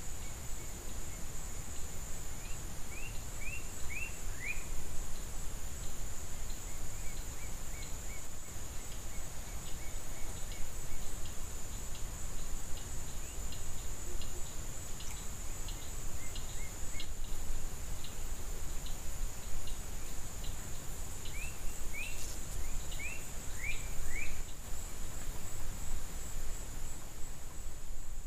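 Outdoor ambience: a steady high-pitched insect drone. A bird gives a quick run of short descending chirps about three seconds in and again about twenty-two seconds in, over a low wind rumble.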